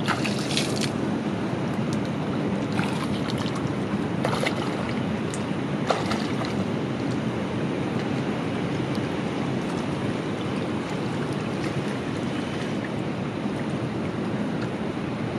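Steady rush of water with wind buffeting the microphone, and a few short sharp sounds in the first six seconds.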